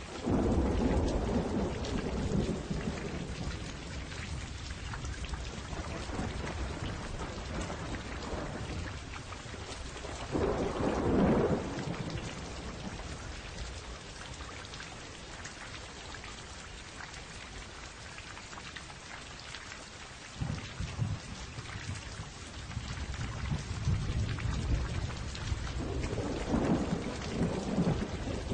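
Steady rain with rolls of thunder. The thunder swells up three times: at the start, about eleven seconds in, and near the end.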